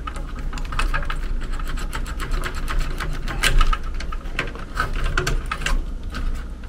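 Rapid clicking and rattling of control-board wires and spade connectors being handled and pushed on inside a sheet-metal air-handler cabinet, densest about a second to four seconds in, over a steady low hum.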